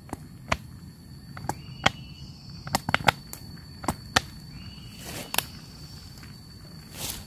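Embers of a small campfire crackling: irregular sharp snaps and clicks, several close together about three seconds in, with two short rustles near the end, over a faint steady high tone.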